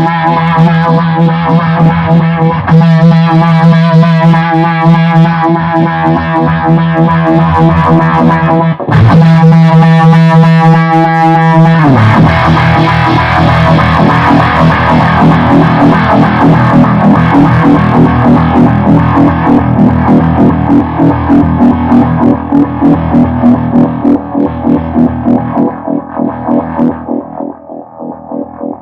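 Heavily fuzzed stringed instrument played through a Behringer Bass Brassmaster fuzz pedal and a vibe pedal: sustained distorted notes and a strummed chord about nine seconds in. From about twelve seconds in, a held note pulses with a regular vibe throb, then fades out near the end.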